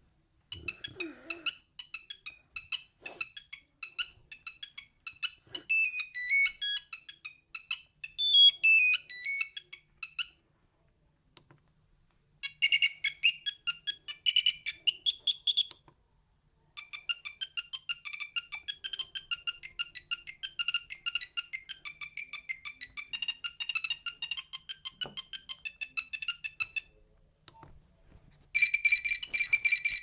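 Nokia 6310 monophonic ringtones playing one after another as short, high-pitched beeping melodies. One melody runs until about ten seconds in. A short one follows around thirteen to sixteen seconds, then a longer one until about twenty-seven seconds, and the next begins near the end.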